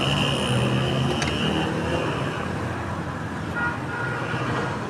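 Street traffic noise from passing motor vehicles, with a steady high tone through the first two seconds or so and one sharp click about a second in.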